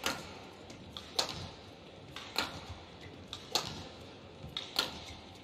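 Badminton rackets striking a shuttlecock in a rally: five sharp hits about a second apart, with fainter ticks between them.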